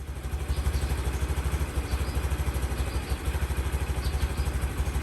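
Motorcycle engine running steadily, a fast even low pulsing without revving.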